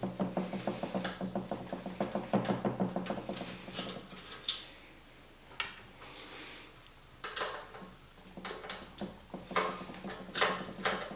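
Light metallic clicks and clatter from handling the steel PC case and its screws. A run of rapid fine ticking comes in the first few seconds, then a handful of separate sharp clicks.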